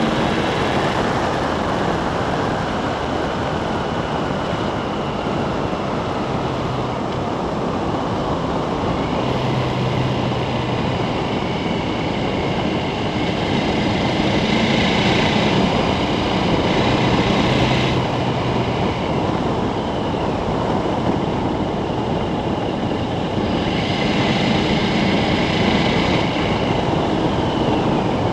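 KTM 1290 Super Adventure's V-twin engine running at speed on a gravel road, mixed with a steady rush of wind and tyre noise. The sound gets a little louder twice, around the middle and near the end.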